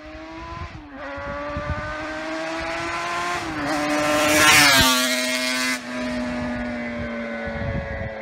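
Motor vehicle driving, its engine note climbing slowly and then stepping down twice as it shifts up. A louder rush of passing traffic peaks about halfway through.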